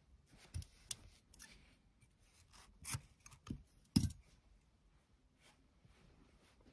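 Inner core strands of grey nylon paracord being pulled and worked out of the sheath by hand: rubbing and scraping of the cord with several short sharp clicks, the loudest about four seconds in.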